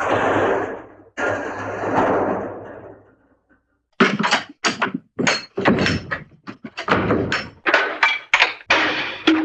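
Hanna-Barbera cartoon door sound effects. Two door slams each die away over a second or two. After a brief silence comes a rapid string of short door thunks and knocks.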